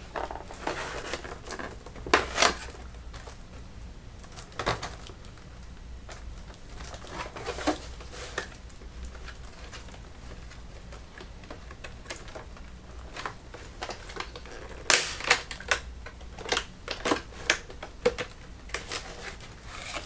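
Stiff plastic clamshell packaging being handled and pried at: scattered sharp clicks and crackles, with a quicker run of snaps about fifteen seconds in.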